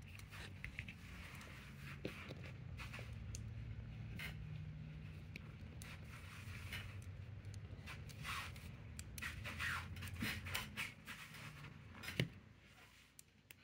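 Small plastic Lego pieces being handled and moved into new positions: faint scattered clicks and scrapes, with one sharper click near the end, over a steady low hum that fades out shortly before the end.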